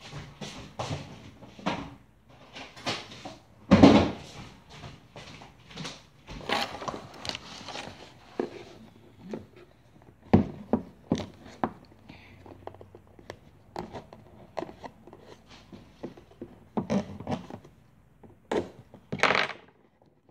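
Handling noise from a cardboard product box: a run of knocks, clicks and scrapes as it is cut open with a knife and turned in the hands, with one loud thump about four seconds in.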